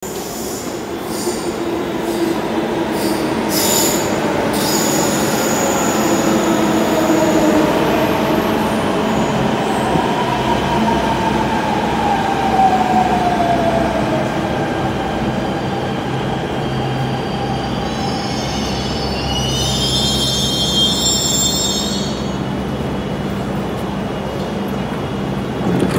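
Delhi Metro Blue Line train pulling into a station: its motor whine falls steadily in pitch as it slows, over a constant low rumble. A high, several-toned squeal comes about twenty seconds in as it draws to a stop.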